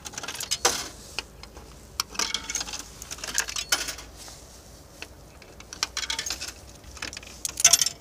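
Coins clinking and rattling as they are fed one by one into a coffee vending machine's coin slot and drop through its coin mechanism, which is accepting them and raising the credit. About five short bursts of clicks and jingling, the last one the loudest.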